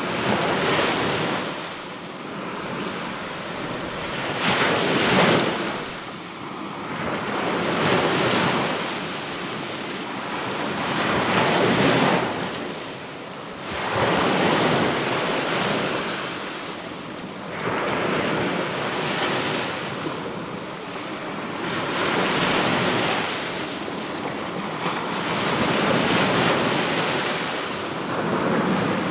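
Sea waves breaking, the surf swelling and falling back every three to four seconds.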